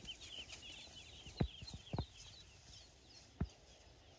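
Newly hatched Pekin ducklings peeping: a rapid run of short, high, falling peeps that thins out after about two and a half seconds. Three low knocks come through the middle.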